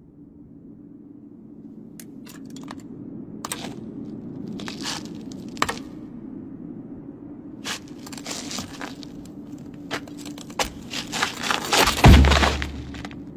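Scattered crackling and crunching clicks over a low steady hum. The clicks grow denser and louder in the second half, and a heavy thud comes near the end.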